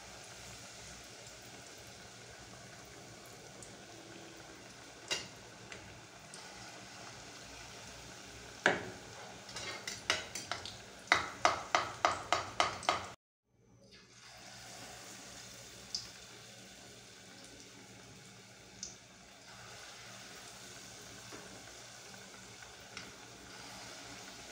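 Fritters frying in hot oil in an aluminium pot, a low steady sizzle, with a metal spoon knocking and scraping against the pot. Near the middle comes a quick run of about eight taps; elsewhere the knocks are single.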